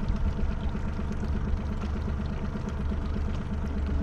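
Boat's outboard motor running steadily at trolling speed, with an even low pulsing beat.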